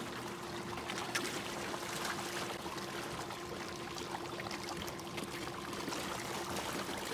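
Water splashing and churning, with many small slaps and slurps, as a crowd of carp thrash at the surface for food.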